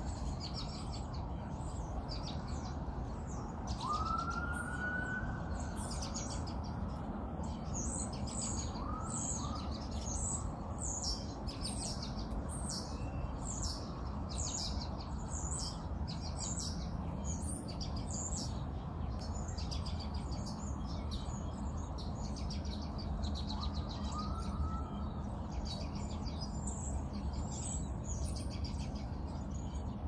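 Many small birds chirping and twittering continuously over a steady low background rumble, with a few brief rising whistled notes now and then.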